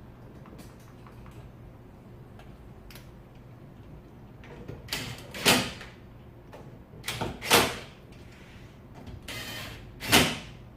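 Power-folding side mirror of a Hyundai Grandeur TG folding and unfolding under its own motor three times, each short motor whir ending in a clunk as the mirror reaches its stop.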